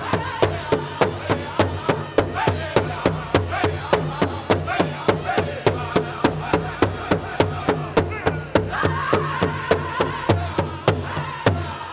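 Pow wow drum group playing a fast chicken dance song: a big drum struck in a steady beat of about four strokes a second, with the singers' voices over it.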